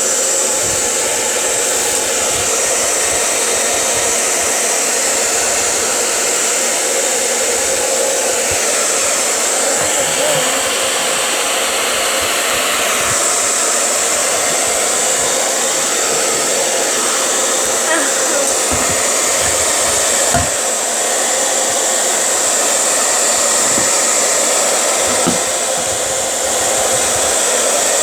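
Hair dryer blowing steadily, heating one side of a phone to soften its adhesive before prying it open.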